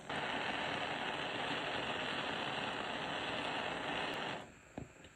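Handheld gas torch flame hissing steadily while heating a flux-filled battery lug to melt solder into it; the hiss stops about four seconds in, followed by a small click.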